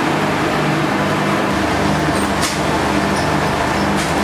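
Machinery running steadily, its low hum stepping back and forth between two pitches. There is a sharp clack about halfway through and another near the end.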